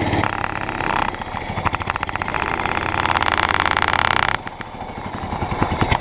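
Small petrol lawnmower engine running at throttle, its speed rising and falling, with a drop in level about four and a half seconds in. Its revs are set wrong, too low for the mower to work properly.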